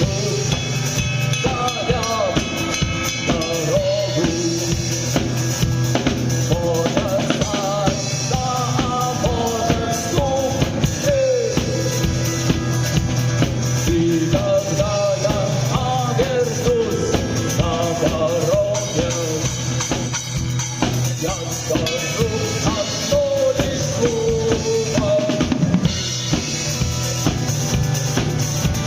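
Live rock band playing: a drum kit keeps a steady beat with bass drum and snare under a bass line and a melodic lead line that bends up and down in pitch.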